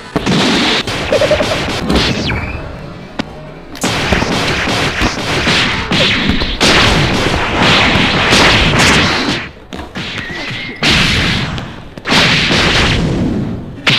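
Pillow-fight blows: a fast, loud run of booming hit sounds in several bursts, with short breaks about three and a half seconds in, around ten seconds and about twelve seconds in.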